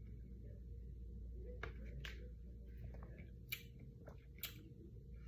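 Faint mouth sounds of sipping and swallowing a milkshake through a straw, then a few small sharp clicks of the plastic cup, lid and straw being handled, over a low steady hum.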